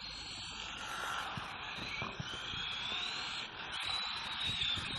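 Small brushed electric RC buggy's motor and drivetrain whining faintly from a distance as it drives. The pitch dips and rises with the throttle, then holds high, over a background hiss.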